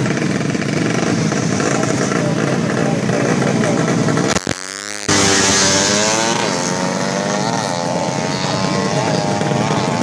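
Tuned 130cc four-stroke moped drag-bike engine revving in repeated blips, its pitch swinging up and down, over a dense background of engine noise. About halfway through there is a short break, then the sound comes back suddenly.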